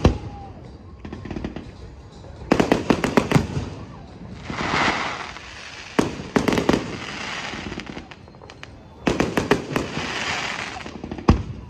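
Fireworks display: aerial shells bursting in volleys of rapid sharp bangs, about four clusters with a single bang near the end. Between the volleys there is a crackling hiss as the burst effects burn out.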